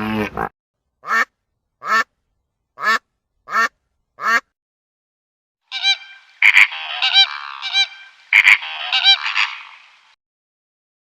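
Honking bird calls: five short single honks, then a flock honking together for about four seconds.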